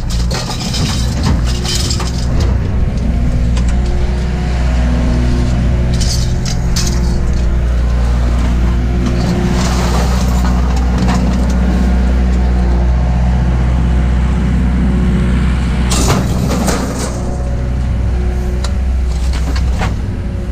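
A vehicle engine idling steadily, with a few short clatters about six, ten and sixteen seconds in.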